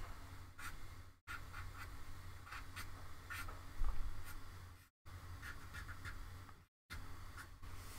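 Ink pen scratching on drawing paper in many short strokes, over a low steady hum. There is a soft knock about four seconds in. The sound cuts out completely for a moment three times.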